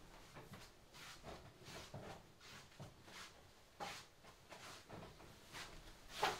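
Soft, sliding footsteps of tabi-socked feet with the swish of a hakama, about two steps a second. A sharper knock sounds near the end.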